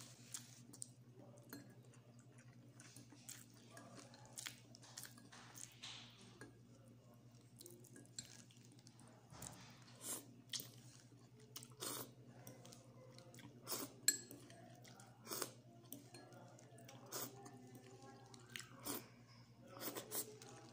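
Close-up eating sounds: chewing and biting on a forkful of instant noodles with egg, with many short mouth clicks, over a steady low hum.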